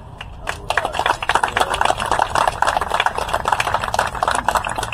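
Audience applauding, the clapping starting about half a second in and keeping up.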